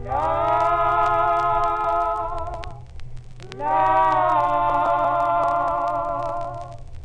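Intro music: a solo voice singing a cappella in long held notes, two sustained phrases each sliding up into pitch, with a short gap between them about three seconds in, over a steady low hum.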